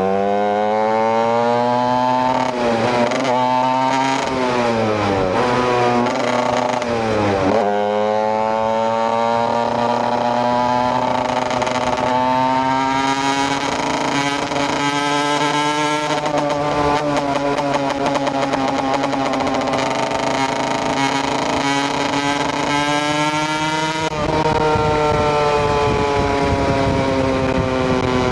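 KTM EXC 125 single-cylinder two-stroke motorcycle engine under way. The revs dip and rise several times in the first eight seconds, then climb steadily for several seconds and hold. They fall away after about twenty-four seconds.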